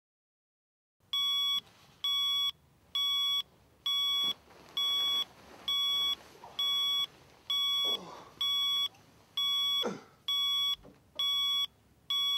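Electronic alarm clock beeping: a high double-pitched tone pulsing on and off evenly, a little more than once a second, starting about a second in. Two fainter sounds sliding downward in pitch come in between the beeps in the second half.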